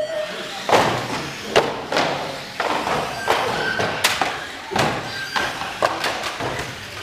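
Radio-controlled model cars racing on an indoor oval, with repeated irregular knocks and thuds, about a dozen in seven seconds, as the cars strike the wooden barrier boards and each other.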